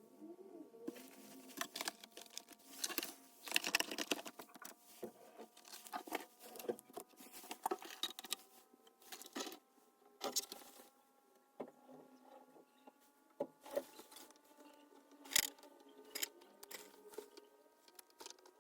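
Irregular clicks, taps and small rattles of parts and tools being handled, over a few faint steady tones that slowly rise in pitch.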